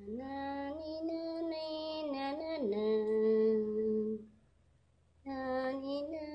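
A woman singing a soft lullaby in long held notes: one phrase that steps down to a lower held note about halfway through and ends about four seconds in, then after a short pause a second phrase begins near the end.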